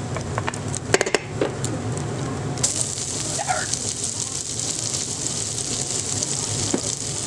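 Diced thick-cut bacon frying in its rendered fat in a pan, a steady sizzle with a few sharp pops about a second in. About two and a half seconds in the sizzle turns brighter and hissier as chopped shallots go into the hot fat.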